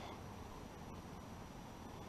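Faint, steady outdoor background noise with a low rumble and a couple of soft ticks; no distinct event stands out.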